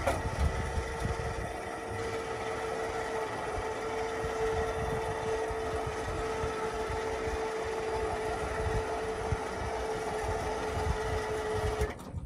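A pickup truck's engine idling steadily, a held hum over an uneven low rumble. It cuts off abruptly shortly before the end.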